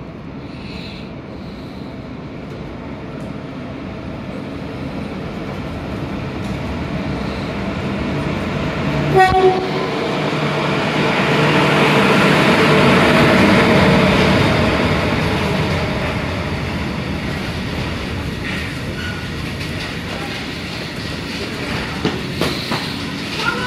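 Freight train of grain wagons behind a class 155 electric locomotive passing, its rumble swelling to its loudest about halfway through and then easing off. A brief loud tone comes about nine seconds in, and a few sharp wheel clacks come near the end.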